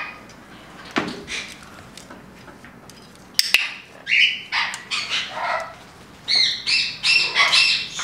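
Amazon parrot squawking and calling in short loud bursts, a few calls early on and a dense run of calls over the last couple of seconds. Two sharp clicks come about three and a half seconds in.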